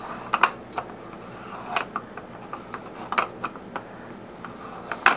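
Plastic toy parts on a baby's Exer-saucer activity seat being turned by hand, giving a few irregular ratcheting clicks and clacks, the loudest near the end.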